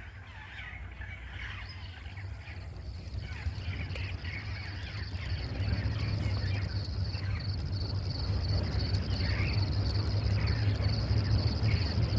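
Engine of an open safari 4x4 running as it drives closer, a low rumble growing steadily louder. Birds chirp, and a steady high insect trill comes in after a second or so.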